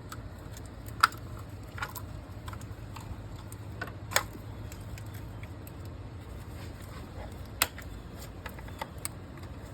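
Scattered light clicks and taps, about half a dozen at uneven intervals, over a low steady hum.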